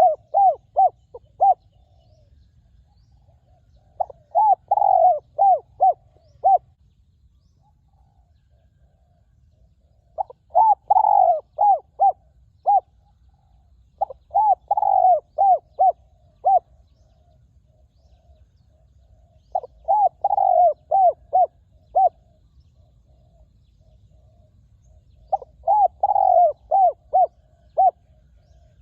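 Spotted dove cooing: a phrase of six to eight quick, loud coos about every five seconds, with fainter cooing in between.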